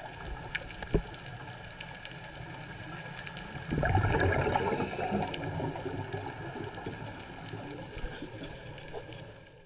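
Underwater sound: a scuba diver's exhaled breath bubbling out of a regulator in a loud gurgling burst about four seconds in, fading over a couple of seconds, over a steady underwater background. There is a sharp knock about a second in.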